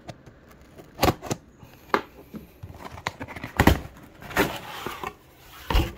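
Cardboard shipping box being handled and opened by hand: a series of knocks and thumps on the cardboard, the strongest about a second in, midway and near the end, with a stretch of scraping and rustling in between.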